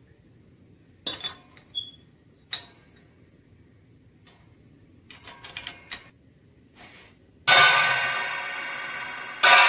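Meinl HCS 8-inch bell cymbal being fitted onto a 16-inch trash crash on a cymbal stand, with a few light metal clinks, then the stacked cymbals struck with a drumstick twice, about two seconds apart. Each hit rings out loudly and slowly fades.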